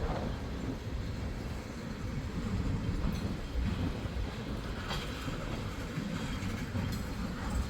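Freight train of tank cars rolling past: a steady low rumble of wheels on the rails, with a few faint clicks about three and five seconds in.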